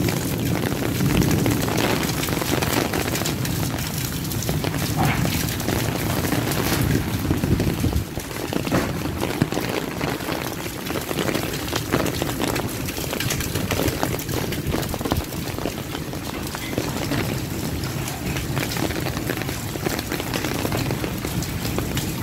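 Heavy rain pouring steadily, a dense patter of drops on hard surfaces. Through roughly the first eight seconds, wind buffets the microphone with a low rumble under the rain.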